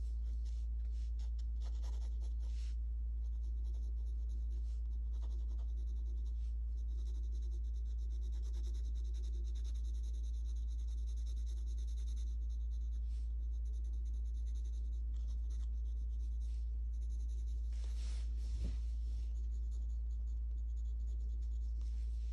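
Graphite pencil scratching on sketchbook paper in long runs of quick back-and-forth shading strokes, thinning out for a few seconds in the middle. A steady low hum runs underneath throughout.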